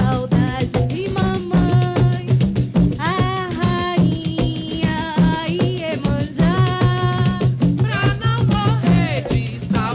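Live coco de roda music: a steady, dense drum and shaker rhythm with a melodic line gliding over it.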